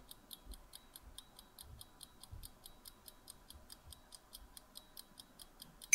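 Countdown-timer sound effect ticking like a clock, faint and even at about five ticks a second. A bright ding starts at the very end as time runs out.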